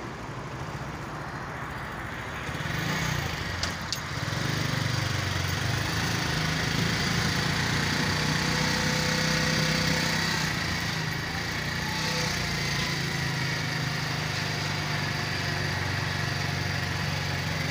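Steady engine drone with a low hum, growing louder about two and a half seconds in and then holding steady.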